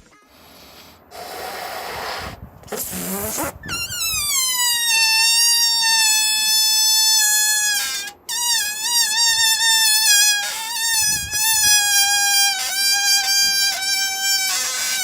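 Air hissing, then a slowly deflating balloon squealing through its stretched neck. It gives a long, high, horn-like tone that slides down at first and then holds. The squeal breaks off briefly about eight seconds in, then carries on wavering and dipping in pitch.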